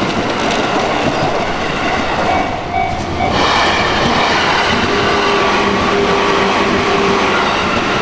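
Electric train of the JR Yokohama Line passing over the level crossing: a loud, steady rattle of wheels on rails. The noise dips briefly about three seconds in, then picks up again.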